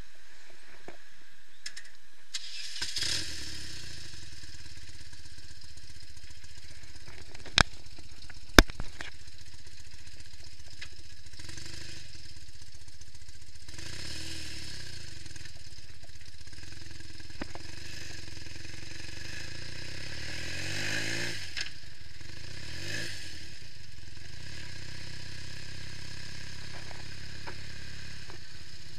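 Customised BMW R65's air-cooled flat-twin boxer engine starting a few seconds in and then running at idle, with a few brief throttle blips that rise and fall in pitch. Two sharp clicks, the loudest sounds, come about a second apart early in the run.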